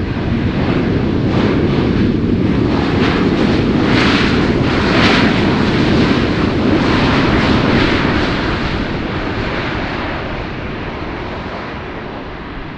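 Jet airliner passing close by on its landing approach. The engine noise swells to a peak a few seconds in, then fades steadily as it moves away.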